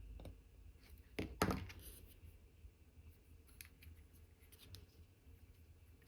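Faint clicks and taps of watchmaker's tools handling small parts of an Omega Cal.1109 movement during assembly. Two sharper clicks come close together about a second and a half in, followed by scattered small ticks.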